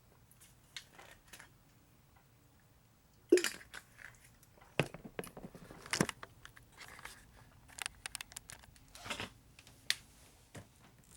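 Scattered knocks, clunks and scraping as a boat's engine-room panels are pulled out and moved by hand, the loudest a sharp knock about three seconds in.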